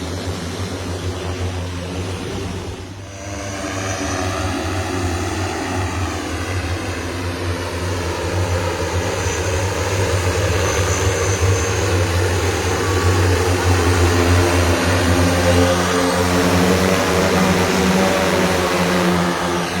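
Hexa one-seater electric multicopter in flight, its 18 propellers droning with many steady tones. The sound dips briefly about three seconds in, then shifts in pitch and grows louder.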